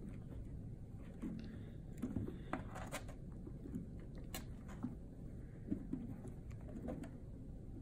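Kittens scuffling on a plastic toy wrestling ring and carpet: irregular soft knocks, taps and scrabbling clicks from paws and bodies.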